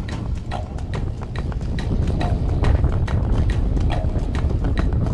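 Spinning reel being cranked fast on a lure retrieve, ticking at about four clicks a second, over heavy wind rumble on the microphone.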